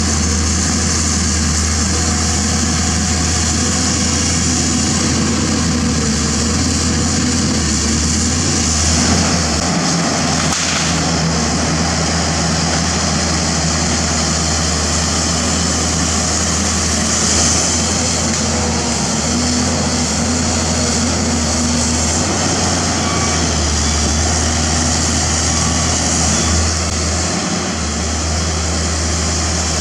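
Pindad Excava 200 excavator's six-cylinder Deutz diesel engine running steadily as the machine works, its low note shifting now and then with the load, under a steady high hiss.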